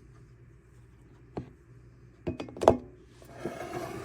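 Coffee-making kitchenware being handled: a single light knock, then a quick run of clicks and knocks about two and a half seconds in, the last one the loudest. A soft rushing noise follows near the end.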